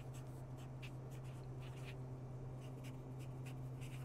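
Faint scratching of a pen writing on paper in a string of short strokes, over a steady low hum.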